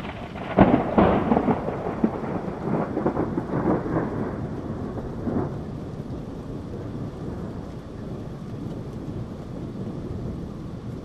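Thunder over steady rain: a loud crack of thunder about half a second in, then a run of crackling peals that die away after about five seconds, leaving the steady hiss of the rain.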